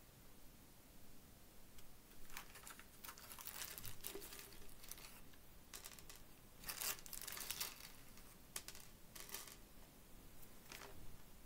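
Plastic zip bag of black Perler beads crinkling and the beads rattling as a hand takes some out, in several short bursts of a second or two.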